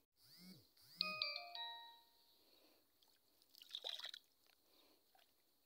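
An added sound effect: two swooping whooshes, then a quick descending run of chime notes. About four seconds in, a brief soft splash of water as fish are let out by hand into the pond.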